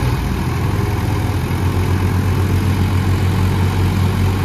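Two diesel tractor engines, a Mahindra 265 DI's and a Massey Ferguson's, running hard and steady under heavy load as the tractors pull against each other in a tug-of-war, the Mahindra's rear wheels dug into the mud.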